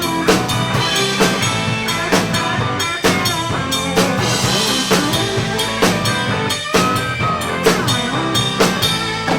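Rock band playing an instrumental passage between sung lines at rehearsal: a drum kit keeps a steady beat with snare and bass drum under held, pitched instrument parts, some notes bending in pitch.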